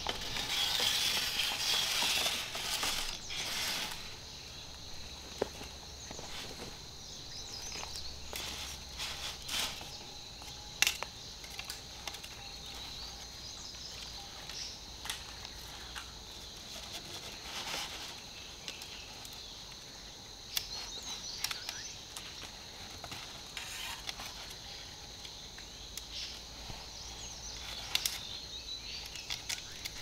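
Rural outdoor ambience: insects buzzing steadily at a high pitch, with scattered rustles, crackles and small knocks of handwork or footsteps, and a louder stretch of rustling in the first few seconds.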